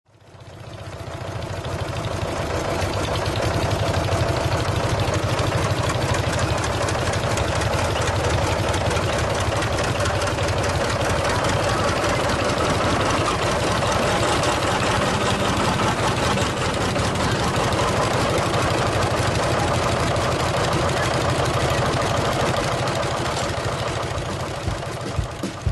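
Two-cylinder John Deere diesel tractor engines running steadily at low speed with a rapid, even knocking beat. The sound fades in over the first couple of seconds.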